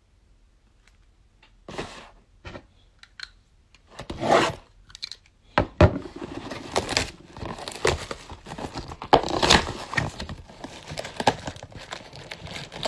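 Hands tearing open a cardboard trading-card mega box, with tearing and crinkling of the packaging. It starts about two seconds in as scattered rips and scrapes, then turns into a busy run of tearing and handling noise from about halfway.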